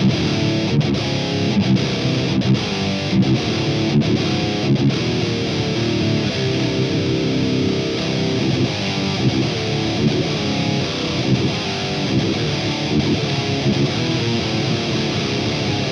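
Heavily distorted electric guitar playing a metal riff through the Audiority Klirrton Grindstein plugin, an HM-2-style 'Swedish chainsaw' tone, with the plugin's boost switched off.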